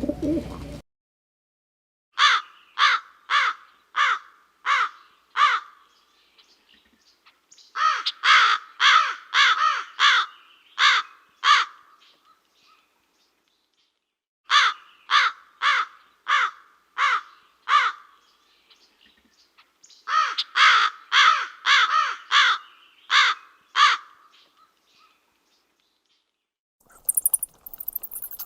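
A bird's harsh calls in four bouts of about six to nine calls each, roughly two a second, with short silences between the bouts.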